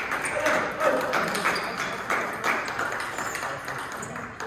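Table tennis rally: the celluloid ball clicking sharply off bats and table in a quick back-and-forth, several hits a second.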